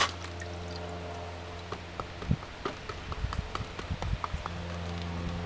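Gravel being panned in a plastic gold pan in a tub of water: water sloshing at the start, then small stones clicking and knocking against the pan in a quick scatter of light taps, over a steady low hum.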